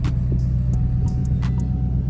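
Background music: a deep, steady bass line with a sharp percussive hit about every second and a half.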